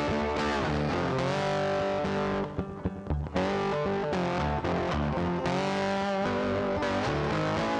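Background music led by electric guitar with distortion and a steady beat. Around the third second the high end drops out briefly before the full band comes back.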